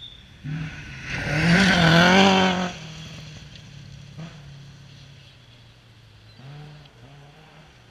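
Rally car engine revving hard on a gravel forest stage, loudest for about two seconds from a second in. It then drops to a lower, steady drone, with a short rise in revs near the end.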